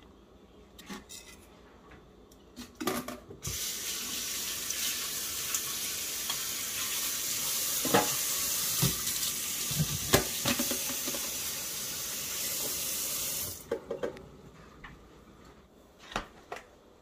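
Kitchen tap turned on, with water running steadily into a sink for about ten seconds, a few knocks of dishes mixed in, then turned off. Scattered clicks and knocks of kitchenware come before and after.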